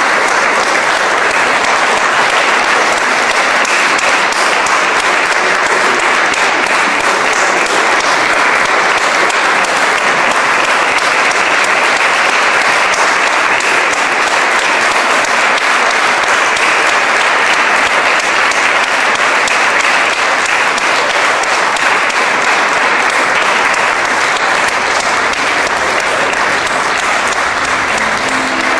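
Audience applauding: a steady, dense patter of many hands clapping, unbroken throughout.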